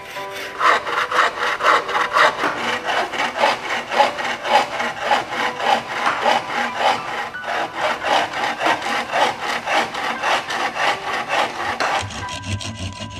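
Wooden-framed hand saw cutting through a green bamboo pole in quick, steady back-and-forth strokes, a rasping rhythm that stops about a second before the end.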